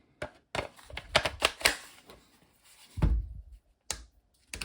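A quick run of sharp plastic clicks and a dull knock about three seconds in, from handling a Makita DTD152 impact driver: the battery being fitted and the freshly repaired forward/reverse selector being pushed back and forth. The motor is not running.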